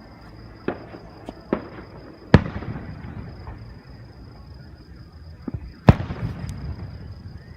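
Fireworks bursting: a string of sharp bangs at irregular spacing, the two loudest about two seconds and six seconds in, each followed by crackling and rumbling echo.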